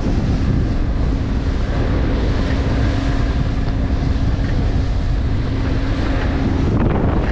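Evinrude 150 outboard motor running at speed, a steady engine note that drops out near the end. Heavy wind on the microphone and rushing water from the hull and wake run over it.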